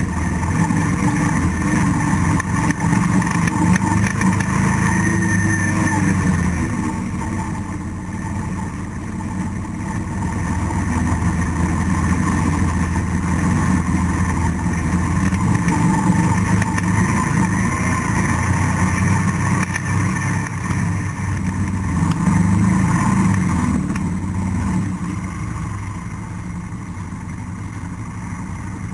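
ATV engine running steadily while riding a grassy trail. It eases off a little a third of the way through and gets quieter near the end.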